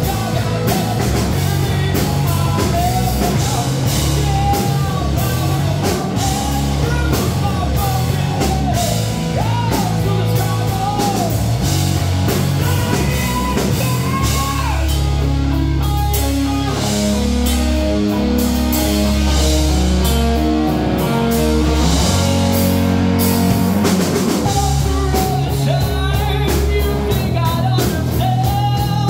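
Live rock band playing: a male lead vocal over bass guitar and a drum kit. The singing drops out for several seconds midway while the instruments carry a stepped riff, then returns near the end.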